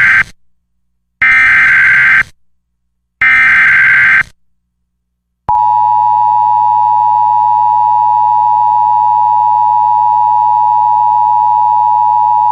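Emergency Alert System SAME header: the tail of one burst of warbling digital data tones, then two more one-second bursts about a second apart. After a short pause comes a steady attention tone, about eight seconds long, which cuts off sharply near the end just before the alert message.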